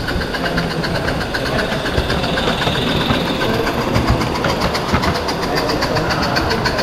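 A small live steam model locomotive running, with a quick, even rhythm of about six or seven chuffs or ticks a second.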